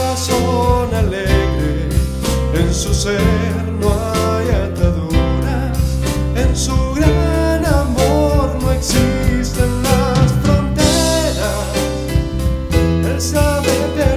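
Music: an instrumental interlude of a Latin American Christian missionary song, with a steady beat, low bass notes and a wavering melody line, and no sung words.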